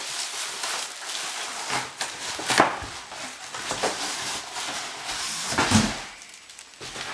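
Plastic wrapping rustling and cardboard box flaps scraping as a wrapped countertop oven is pulled out of its box, with a knock about two and a half seconds in and a heavier bump near six seconds.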